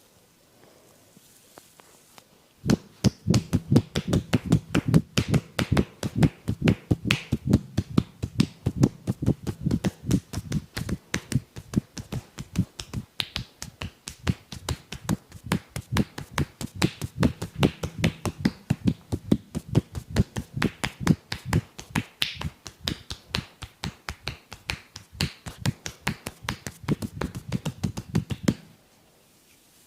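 Barber's hands striking the body in a rapid percussive massage, steady slaps or chops at about five strokes a second. The run starts about three seconds in and stops about a second before the end.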